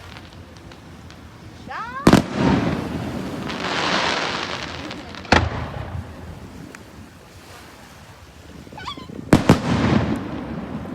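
A fireworks display: aerial shells bursting with sharp bangs, four in all (about two, five and nine seconds in, the last two close together), each followed by a spell of crackling. A short rising whistle comes just before the first burst and again just before the last pair.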